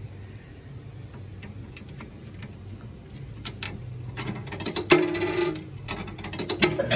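Coins being fed into the coin mechanism of a coin-operated kiddie ride: light metallic clicks and rattles, busiest from about four seconds in, with one sharp click near five seconds, over a low steady hum.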